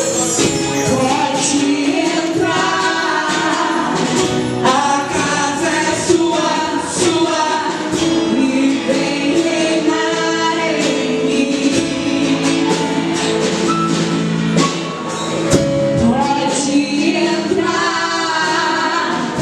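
Worship song: singing over held chords, with frequent short percussive strokes.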